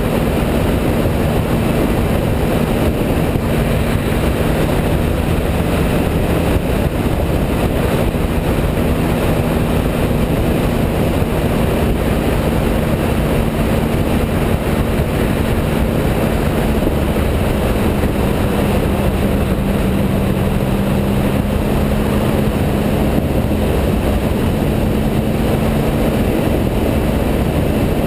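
Triumph Speed Triple's 1050 cc three-cylinder engine running at a steady cruise, heard from the rider's seat under heavy wind and road noise. Its engine note holds nearly constant, drifting only slightly in pitch.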